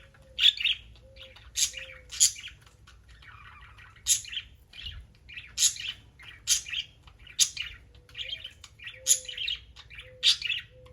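Budgies chirping: a string of short, sharp chirps about one to two a second, with softer chatter between them.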